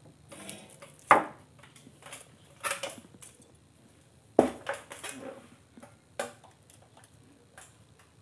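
Objects being handled on a workbench: about six sharp knocks and clatters, the loudest about a second in and just after four seconds, with brief crinkling of a plastic bag between them.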